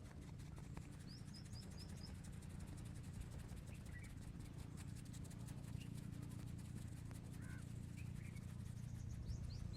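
Birds chirping over a low, steady outdoor rumble: a quick run of five short high chirps about a second in, a similar run near the end, and a few fainter chirps in between.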